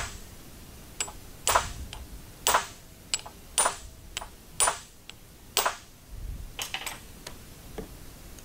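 Sharp, ringing metal-on-metal hammer strikes on a hand-held driver seated in a stuck screw plug on a floor jack's hydraulic pump, about six loud blows roughly a second apart with lighter taps between, to break the plug loose.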